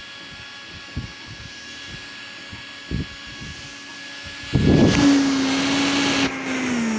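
Portable USB rechargeable mini fan handled with a couple of light knocks, then switched on about four and a half seconds in: a steady small-motor hum with a rush of air, which gets quieter about a second and a half later.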